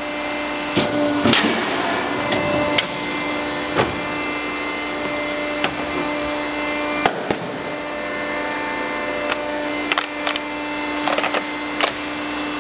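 Samco TC-75 75-ton die cutter running with a steady, very quiet hum, with several short clicks and knocks scattered through as the head cycles down onto a steel rule die and cuts a plastic sheet.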